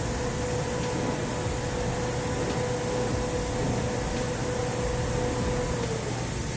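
Sawmill machinery running with a steady mechanical drone and hum, and a steady whine that cuts off near the end.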